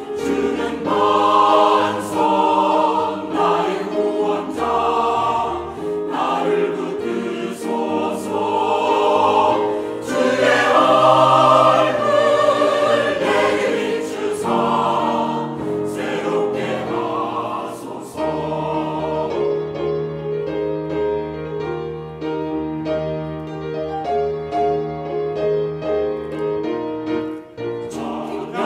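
Mixed-voice church choir singing a hymn anthem with keyboard accompaniment; about two-thirds of the way through, the music turns softer.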